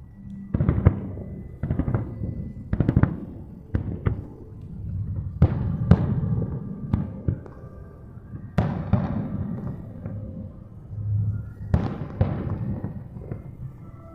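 Aerial fireworks shells bursting in a rapid series of sharp booms, each followed by a rolling echo, with several bursts close together about six seconds in.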